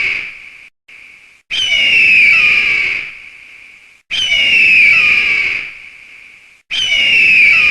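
Eagle call sound effect: a high, piercing cry that falls in pitch, repeated about every two and a half seconds in identical copies. The tail of one cry fades at the start, then three more cries follow.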